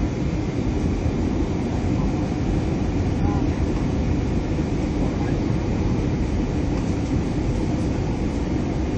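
Steady, deep rushing noise of an Airbus A320 in flight, heard from inside the cabin: engine and airflow noise that holds an even level throughout.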